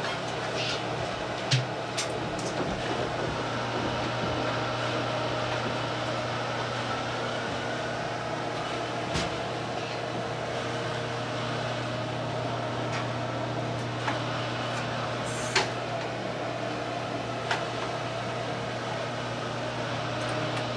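Steady mechanical hum of running machinery, with a few light clicks and knocks, the clearest about a second and a half in and again near fifteen seconds.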